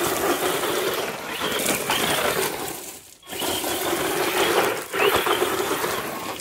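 Small electric RC truck's motor and gears whining under throttle as it spins donuts on gravel, its tyres crunching and spraying the stones. Two long bursts of throttle, with a short drop about three seconds in.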